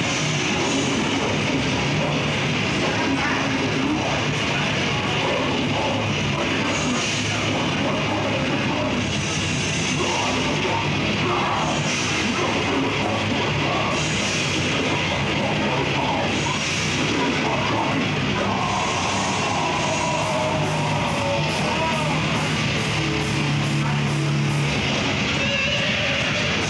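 Death metal band playing live, with distorted electric guitars, bass and drums. Cymbal crashes come about every two seconds, and faster, evenly spaced cymbal hits follow near the end.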